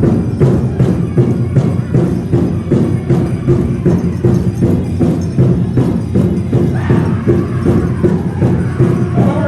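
Powwow drum struck in a steady, even beat, with pitched voices rising over it for a moment near the end.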